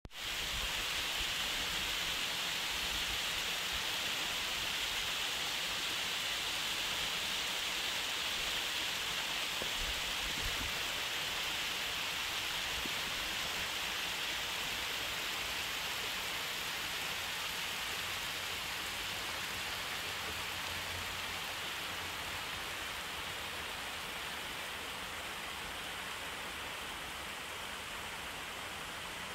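Steady rush of water from a small waterfall spilling over a stone wall, fading slightly toward the end.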